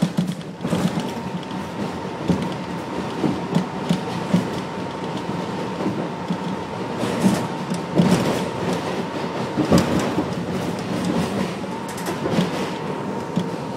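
New York City Subway train running on elevated track, its wheels clacking over rail joints and switches at irregular intervals above a steady rumble and a faint steady whine.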